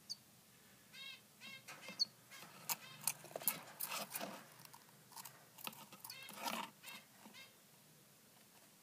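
Nestling songbird giving faint, short cheeping calls in a few separate bursts, among scattered soft clicks.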